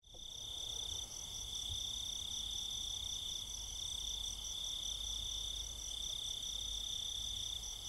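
Crickets chirping: a steady high trill with a second, higher chirp pulsing about four times a second above it.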